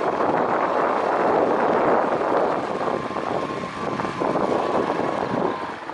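Off-road vehicle's engine running steadily under load, with a faint steady whine in it.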